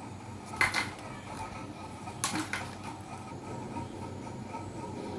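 Paper of a drawing book being handled: two brief rustles of its pages, about half a second and two seconds in, over a low room hiss.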